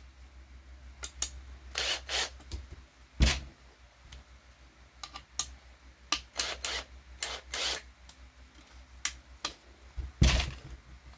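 Irregular clicks, taps and clacks of a cordless screwdriver and hard RC car parts being handled and set down, with a louder knock about three seconds in and another near the end, over a steady low hum.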